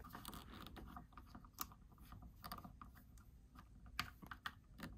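Faint, scattered clicks and scrapes of hard plastic as a Masterverse Roboto action figure's forearm is worked onto its tight peg joint.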